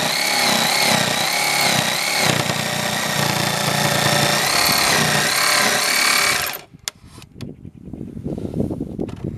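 Ryobi 18 V cordless jigsaw cutting through a thin wooden board: a steady rasping buzz with a wavering whine. It cuts off abruptly about two-thirds of the way in, followed by a few light clicks and handling knocks.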